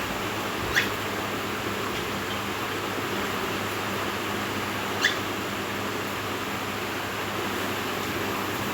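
Cockatiel giving two short, sharp chirps about four seconds apart, over a steady background hiss.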